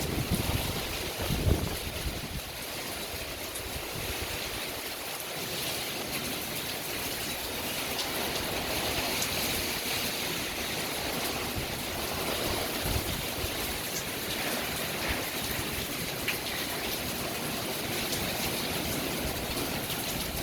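Heavy hurricane rain pouring down hard and steadily, with a few low gusts of wind in the first couple of seconds.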